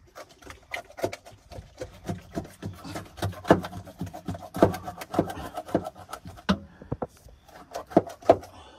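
Irregular knocks, slaps and rubbing as hands work at the gills of a halibut lying in a boat's aluminum fish hold, the fish and hands bumping against the hold. The loudest knocks come about three and a half seconds in and twice near the end.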